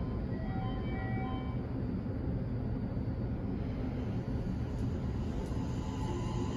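Toei Mita Line subway train heard from inside the car as it pulls away from a station: a steady low running rumble, with a steady humming tone from the motors coming in near the end as it gathers speed.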